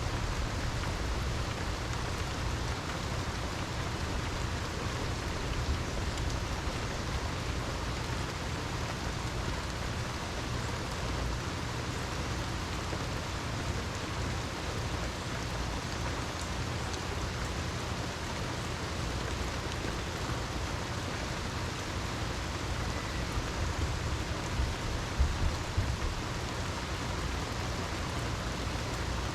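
Steady rain falling, an even hiss with a low rumble underneath, and a few brief louder hits about twenty-five seconds in.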